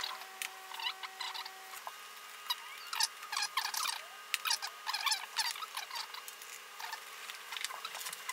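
Small metal parts of a brass ship light being handled and lined up by hand: a run of light scrapes, clicks and small squeaks, with a faint steady hum underneath.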